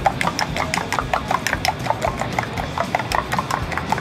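Metal spoon beating egg batter in a small stainless steel bowl: a quick, even run of clinks against the bowl's side, several strikes a second, as the eggs are whisked with onion, turmeric and gravy.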